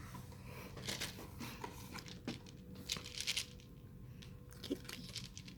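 Blind-box toy packaging being handled and torn open: short, scattered crinkles and tears of plastic or foil wrapping, busiest about three seconds in.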